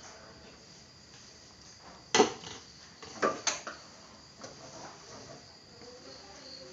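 Crickets chirping steadily in the background, with a sharp knock about two seconds in and a quick pair of clatters a second later as things are handled at a stainless steel gas stove during cleaning.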